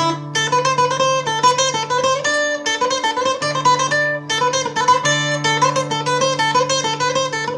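Solo guitar playing a fast passage of rapid plucked notes over held bass notes, breaking off briefly twice and starting again. The notes come out slightly unclean, which the player puts down to his hands not being in sync.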